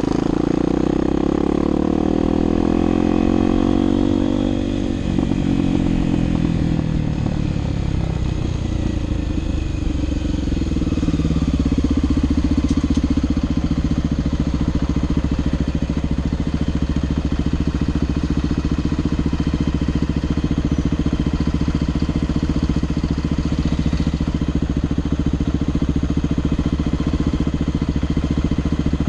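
Motorcycle engine winding down as the bike slows, its pitch falling over the first several seconds and again until about eleven seconds in, then idling steadily for the rest while the bike stands in traffic.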